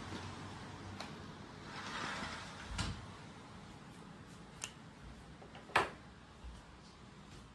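A few scattered knocks and clicks from someone moving about a room, the loudest a sharp knock about six seconds in, over a faint steady hiss.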